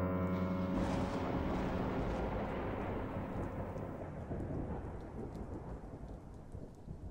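A rumble of thunder that starts abruptly, rolls on and slowly fades over several seconds, with a steady hiss behind it.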